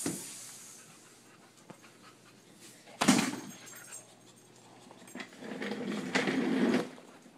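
A person with their face in a plate, panting and snuffling like a dog while eating, in breathy bursts: a sharp loud one about three seconds in and a longer one near the end.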